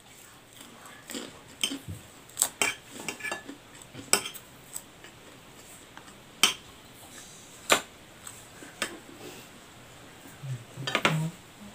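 Metal spoon clinking and scraping against a ceramic bowl of fried noodles, in scattered sharp taps, with a quick cluster of clicks near the end.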